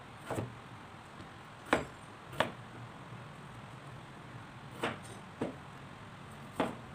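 Kitchen knife cutting through peeled raw potatoes and knocking on a wooden cutting board: about six sharp knocks at uneven intervals, the loudest about two seconds in.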